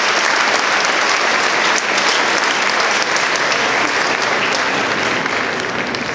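Large crowd applauding, a dense patter of many hands clapping that begins to die down near the end.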